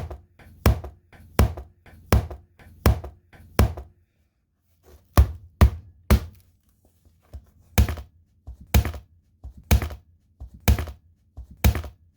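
A hatchet chopping into a tablet computer: about a dozen sharp, separate blows. They come roughly one every 0.7 s at first, then in a quick group of three after a short pause, then about one a second near the end.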